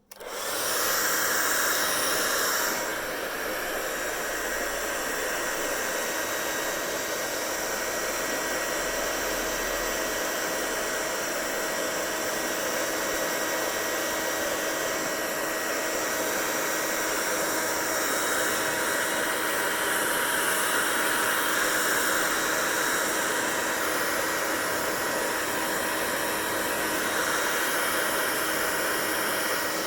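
Hair dryer running, its steady blowing with a motor hum. It comes on at once and is a little louder for the first three seconds before settling.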